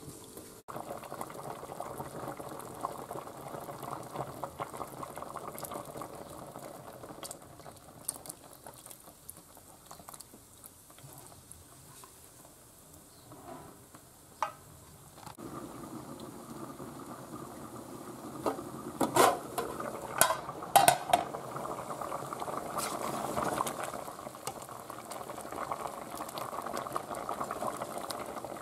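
Stew bubbling in an aluminium pot, with a metal ladle stirring it. A few sharp metallic knocks of the ladle against the pot come about two-thirds of the way through.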